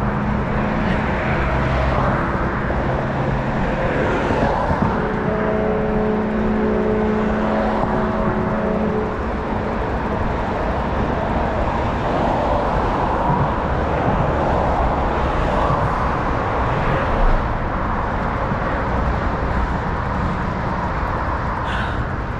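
Wind rushing over the microphone of a camera riding along on a bicycle, mixed with traffic noise. A steady hum with several pitches sounds from about five to nine seconds in.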